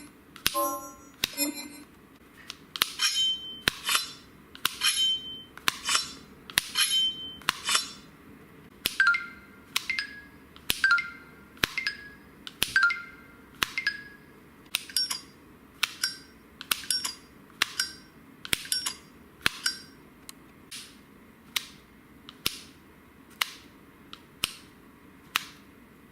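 Xiaomi Mi MIX 3's slider sound effects playing from its single speaker: short chiming clicks about once a second as the magnetic slide is pushed open and shut. The effect changes every few seconds as different ones of its five slide sounds are tried: first with a high ping, then a lower chime, then plainer clicks near the end.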